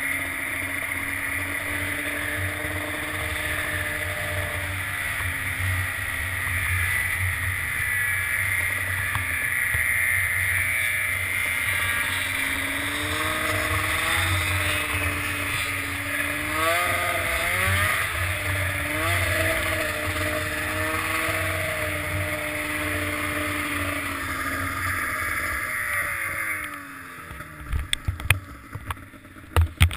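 Snowmobile engine running while riding through snow, its pitch rising and falling with the throttle. Near the end the engine winds down and a few sharp knocks follow.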